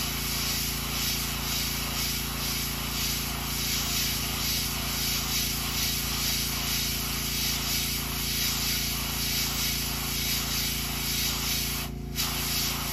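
Gravity-feed airbrush spraying ink in a steady hiss that swells and fades in a quick, regular rhythm, with a steady low hum underneath. The spray cuts out for a moment near the end, then resumes.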